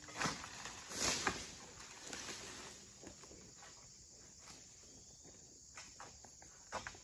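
Short rustling, crunching noises, several in the first two seconds and a couple more near the end, against a quiet outdoor background.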